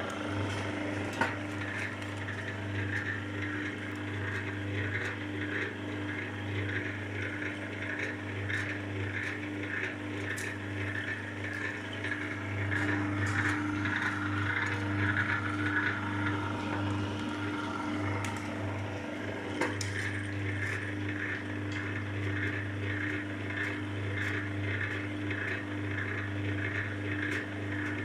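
MQ-38 electric cable-stripping machine running, its motor and reduction gearbox giving a steady hum under a fast rhythmic rattle as cable is drawn through its rollers and knives. A sharp click comes about a second in, and the rattle grows louder for a few seconds midway.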